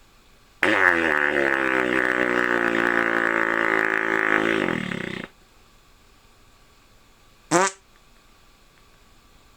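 A long buzzing note with a rich, even tone, held for about four and a half seconds, its pitch sagging at the start. It is followed a couple of seconds later by a short squeak that sweeps upward.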